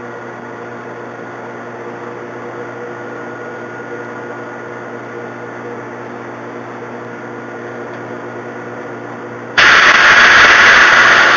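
Metal lathe running steadily, its motor and gears giving a constant hum with a few steady tones, with the boring tool in the rifle barrel's breech. Near the end a much louder burst of hiss cuts in suddenly and lasts about two seconds.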